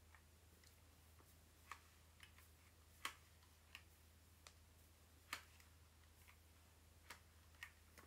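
Near silence broken by about a dozen faint, irregular clicks of a hair iron's plates clapping shut and opening as it is worked through hair, the loudest about three and five seconds in, over a low steady hum.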